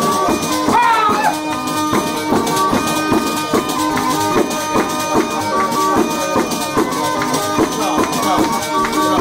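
Live folk dance music: a melody of held, stepping notes over a steady jingling percussion beat, like a tambourine.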